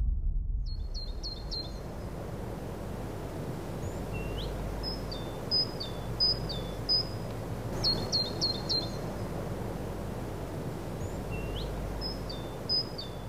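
A small bird calling over a low steady outdoor rumble: quick runs of four short high notes, a couple of rising whistles, and spaced single notes repeated through the stretch.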